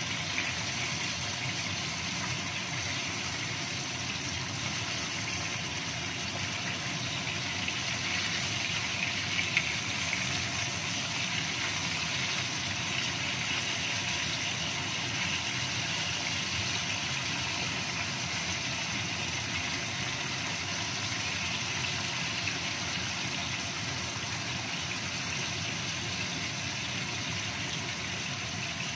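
Salmon steaks sizzling in hot oil in a nonstick wok, a steady frying hiss, with a sharp knock about nine and a half seconds in.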